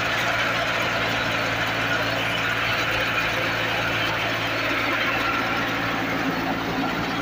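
Wheat threshing machine running steadily: a constant engine hum under a dense rushing noise as it threshes and throws out grain and chaff.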